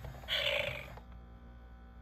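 FurReal Friends Daisy toy kitty's built-in speaker playing a short, rough electronic cat sound, about half a second long, soon after the start, followed by a faint steady hum.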